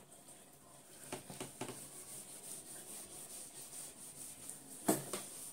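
Faint rubbing of a whiteboard duster wiping marker writing off a whiteboard, with a brief louder sound near the end.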